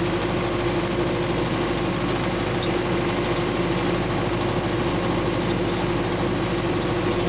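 MTZ-80 tractor's four-cylinder diesel running steadily under load while pulling a seed drill, heard from inside the cab.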